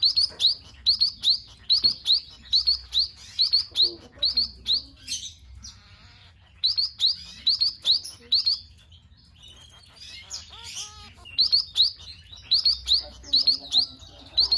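Emprit (munia) lure call: quick runs of short, high, downward-slurred chirps, about three a second, broken by short pauses. A lower, wavering call sounds once about ten seconds in.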